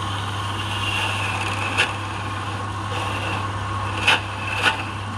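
Wood lathe running with a steady motor hum while a hand-held chisel scrapes the spinning wooden workpiece, a hissing cut that swells and fades. Three sharp clicks come through it, one near two seconds in and two close together near the end.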